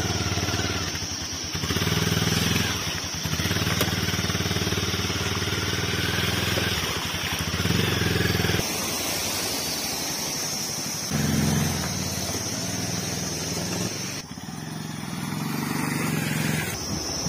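Motorcycle engine running at low speed, its sound rising and falling in steps.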